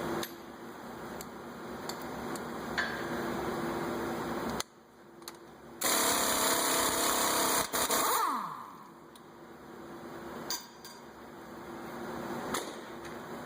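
Power tool, most likely an impact wrench, running in bursts while loosening a nut. It is loudest for about two seconds in the middle, then is let go and its motor winds down with a falling whine.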